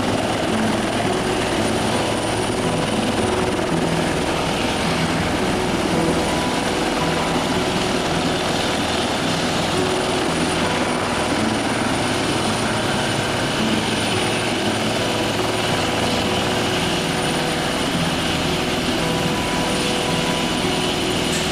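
Helicopter running steadily at close range: dense rotor noise with a rapid chop underneath and a steady high whine from the turbine on top.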